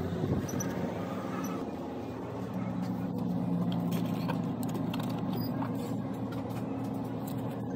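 Steady low mechanical hum with a few light ticks.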